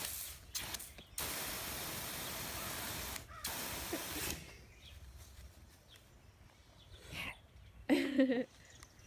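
Water hissing from a garden hose spray nozzle in a steady jet, cutting off a little past four seconds in. Near the end a child's voice calls out briefly.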